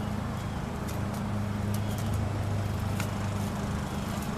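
A steady low mechanical hum, with a few faint soft clicks over it.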